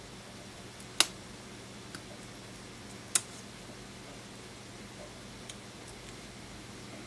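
Small sharp clicks of hand tools against the parts of an iPhone 6S being reassembled: two louder clicks about a second and about three seconds in, with a few fainter ticks, over a faint steady hum.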